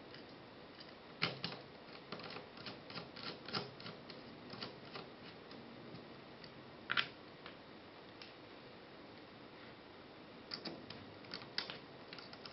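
Light clicks and taps of hands handling the parts of a Raspberry Pi case and its flat ribbon cable on a tabletop. There is a string of irregular clicks in the first few seconds, one sharper click about seven seconds in, and another cluster near the end.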